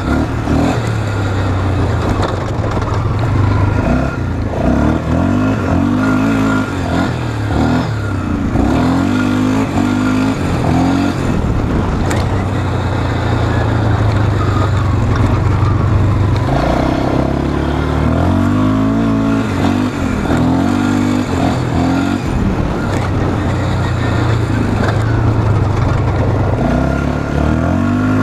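Polaris Scrambler 500 ATV's single-cylinder four-stroke engine revving hard and dropping back again and again as it is ridden around a dirt track, heard from the rider's chest.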